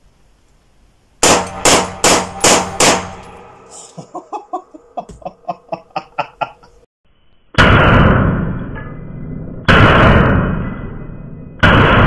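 Mauser C96 Schnellfeuer pistol in 7.63x25 Mauser firing single shots in semi-auto. First comes a quick string of five shots about a second in, then three slower shots about two seconds apart near the end, each ringing out in the echoing indoor range.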